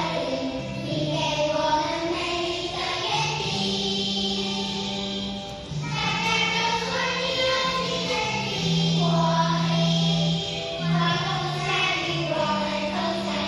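A choir of kindergarten children singing a song together over an accompaniment of held low notes that change every second or two.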